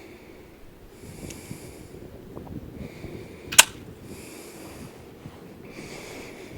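A person breathing heavily in a slow, steady rhythm while walking, with one sharp, loud click about three and a half seconds in.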